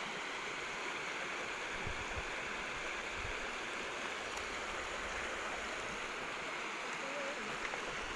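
Shallow river rushing and splashing over rounded stones, a steady even rush of water.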